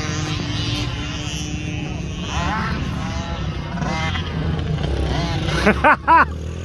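Dirt bike engine idling in the distance under a steady low rumble, with a person shouting twice near the end.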